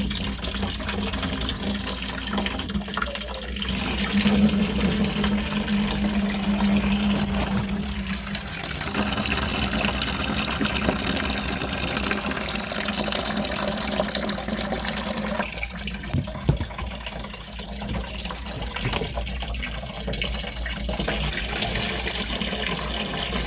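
Water rushing steadily out of a water-source heat pump's condenser water line, the line clogged with mud that has been causing high head pressure. About four seconds in, a low hum comes in for a few seconds.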